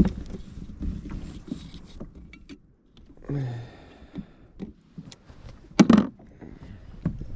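Scattered knocks and clicks of gear being handled in a kayak. A brief low hum comes a little over three seconds in, and a louder thump about six seconds in.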